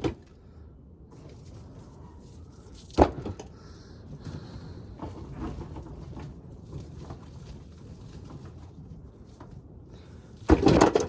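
Dried ears of corn being sorted by hand from a tub: light rustling and small clicks, a sharp knock about three seconds in, and a louder clatter of ears knocking together near the end.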